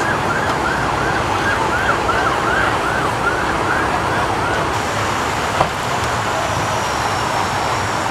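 Emergency-vehicle siren on a fast yelp, rising and falling about three times a second and fading out about halfway through, over a steady rumble of traffic and engines. A single sharp click comes a little after it fades.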